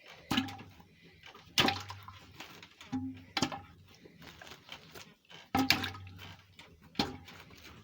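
Sweet potatoes dropped one at a time into a pot holding some water, each landing with a splash, about six times at uneven intervals.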